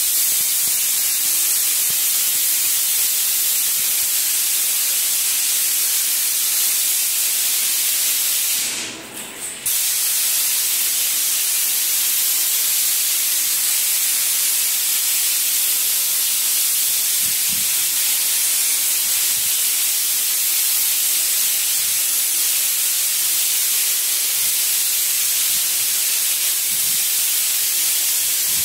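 Wall putty spray machine's gun hissing steadily as it sprays putty onto a wall. The spray briefly falls away about nine seconds in, then cuts back in at full strength.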